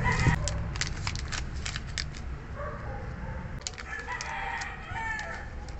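A rooster crowing, most clearly in the second half, over the crackle and clicks of a plastic-and-foil pouch being handled.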